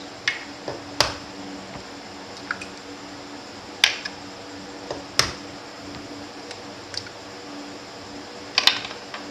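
Raw eggs being cracked on the rim of a glass bowl and their shells pulled apart: a few sharp clicks and taps a second or more apart, with a quick cluster near the end, and the eggs dropping wetly into the bowl. A faint steady hum runs underneath.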